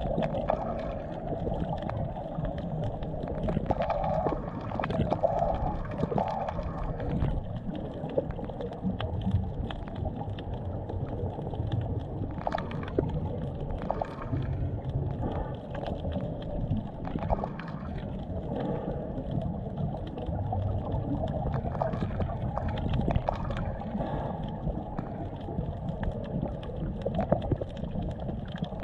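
Underwater ambience picked up by a submerged camera: a low, muffled rumble of water, with scattered sharp clicks throughout.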